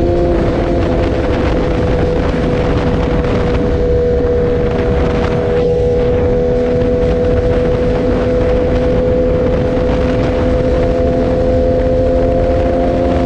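2018 BMW S1000R's inline-four engine breathing through a full Akrapovic exhaust, cruising at a steady engine speed with its note holding nearly the same pitch throughout, with wind rushing over the microphone.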